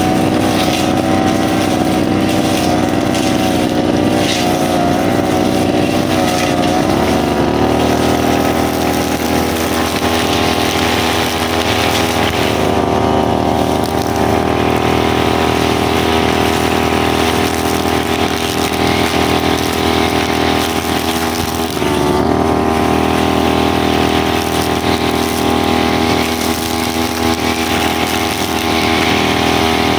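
Small brushcutter engine running hard at high speed, its pitch wavering for the first several seconds and then holding steady, with a brief dip about 22 seconds in.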